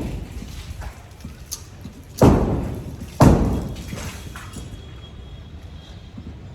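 Heavy blows during building demolition work: two thuds about a second apart, a couple of seconds in, each trailing off.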